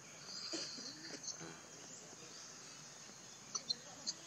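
Faint outdoor background: a high insect buzz, faint distant voices in the first second or two, and two sharp ticks near the end.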